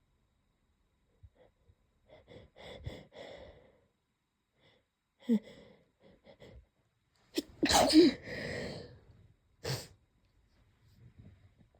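A person sneezing. A few short catching breaths come as the sneeze builds, then a loud sneeze about seven and a half seconds in, followed by another short, sharp one about two seconds later.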